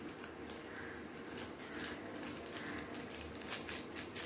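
Plastic seasoning sachet crinkling and being tapped as powder is shaken out of it into an instant noodle cup: a run of small, irregular clicks and rustles.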